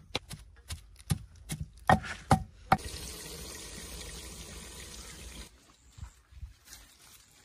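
Hands slapping flatbread dough flat between the palms, about two to three slaps a second. This gives way suddenly to a steady sizzling hiss from a pot of kofte cooking in hot oily gravy, which cuts off about two and a half seconds later.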